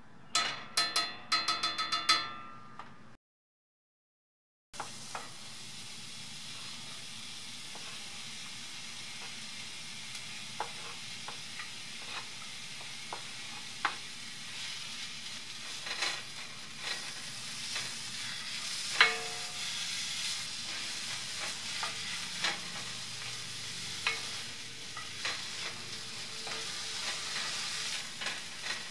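A brief run of quick pitched notes, then a short silence. After that, sliced red onions sizzle steadily in hot coconut oil in a cast-iron skillet, with scattered clicks and scrapes as a wooden spatula stirs and breaks up the onion layers against the pan.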